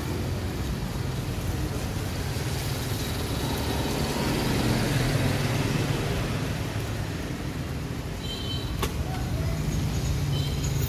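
Road traffic going by: a steady low engine rumble that swells louder around the middle as a vehicle passes, then eases, with a sharp click near the end.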